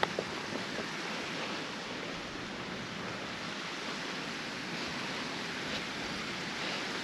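Steady rushing of running water, an even hiss with no rhythm and a few faint ticks right at the start.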